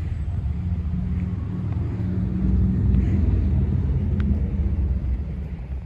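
Low steady rumble of a parked electric railcar's onboard equipment running at standstill, growing a little louder midway.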